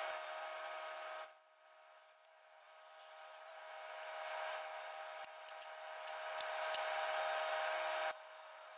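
A metal-cutting torch hissing with a steady tone as it cuts through the steel ring of a trommel drum. It drops away about a second in, builds back up louder, and stops abruptly near the end, with a few sharp ticks in between.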